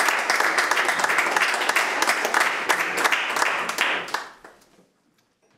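Audience applauding, a dense patter of many hands clapping that fades out after about four seconds.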